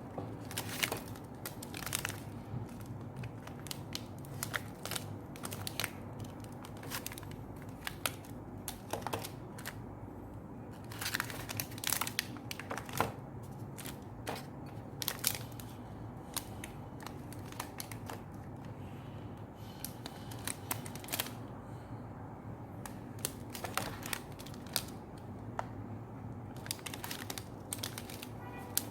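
Close-up eating sounds from a person eating fresh-fruit ice cream: irregular sharp clicks and crinkly crackles over a steady low hum.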